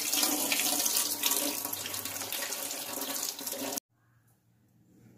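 Kitchen tap running onto chopped coconut pieces in a stainless mesh strainer, water splashing through the mesh. It cuts off suddenly after about four seconds.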